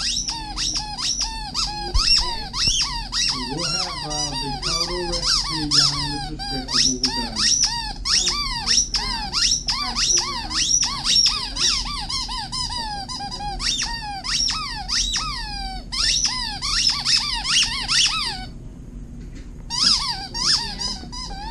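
A purple hedgehog squeaky toy squeaked over and over as an Alaskan Malamute chews it: a fast run of short squeaks, each falling in pitch, several a second, with a brief pause about 18 seconds in before the squeaking starts again.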